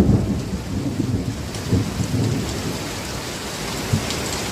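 Heavy rain and hail pouring down in a strong wind, with gusts rumbling low on the microphone; the strongest gust comes right at the start.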